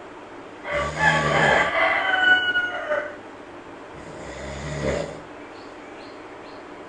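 Sleeping monkey snoring, two breaths about three seconds apart. A rooster crows over the first breath, about a second in, with several high held notes lasting about two seconds.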